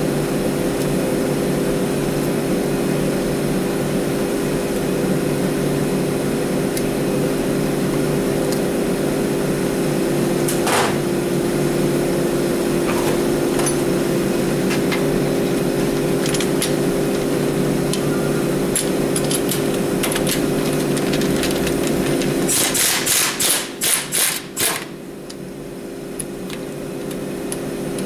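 Steady mechanical hum of a running shop motor, with a quick run of about eight sharp metallic knocks a little over three-quarters of the way through; after the knocks the hum is quieter for a few seconds.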